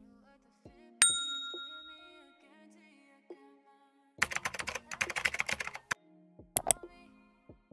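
Makeup items being handled: a sharp metallic ding about a second in that rings briefly, then a quick rattle of clicks for under two seconds, and a quick double click near the end, over faint background music.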